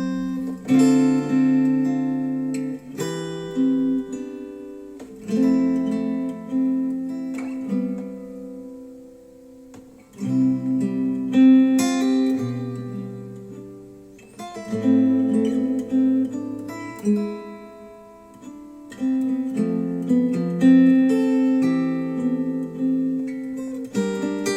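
Acoustic guitar music, plucked and strummed chords that ring out and fade, played back through Wharfedale Denton 80th bookshelf speakers driven by a Sony STR-DG500 receiver. It dies down to a soft stretch about a third of the way in, then picks up again.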